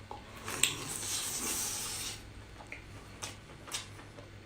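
A person eating lobster meat close to the microphone: a hissing slurp lasting about a second and a half, then a few short wet clicks and smacks of chewing.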